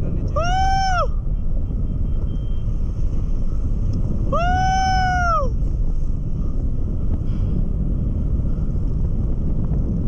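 Wind rushing and buffeting over an action-camera microphone in flight under a tandem paraglider, a steady loud rumble. Twice a high, drawn-out call rises and falls in pitch over it: once briefly, about half a second in, and once longer, around the middle.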